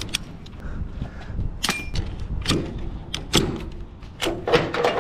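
Steel ratchet-strap buckle being worked by hand: a series of sharp metallic clicks, about one a second, from a little over a second and a half in.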